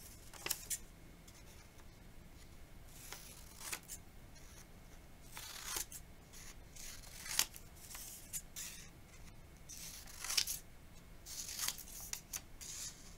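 Scissors snipping through paper in short cuts at irregular intervals, with paper rustling as the strip of word cards is handled between cuts.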